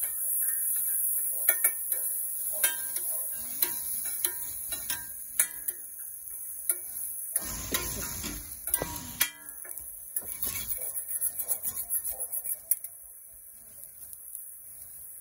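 Metal spatulas clanging, tapping and scraping on a flat iron griddle as chicken and onions are stir-fried. A louder stretch of scraping comes about halfway through, then a quick run of taps at about four a second, before it quiets near the end.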